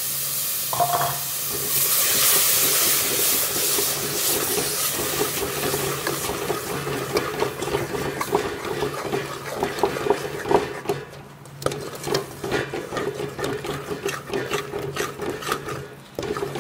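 Tomato paste sizzling as it hits the hot fried masala in a metal pot, the start of frying it in. A steel spoon stirs and scrapes against the pot. The sizzle is loudest in the first few seconds, then gives way to a run of spoon scrapes and clicks.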